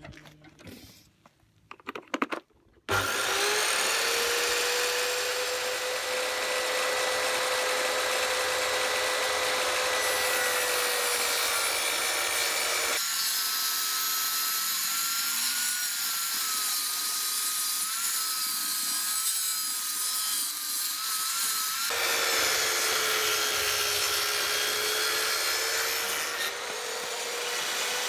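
A few small clicks and knocks, then a table saw suddenly starts about three seconds in and rips pallet-wood planks lengthwise: a steady motor whine over the noise of the blade cutting through the wood.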